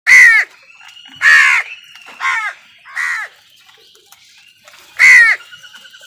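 House crows cawing: five loud, harsh caws, each about a third of a second long, spaced unevenly over a few seconds, with the last about five seconds in.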